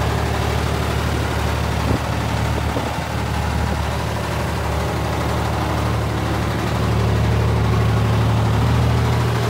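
2005 JLG 3394RT rough-terrain scissor lift's diesel engine idling steadily, with a single light tap about two seconds in.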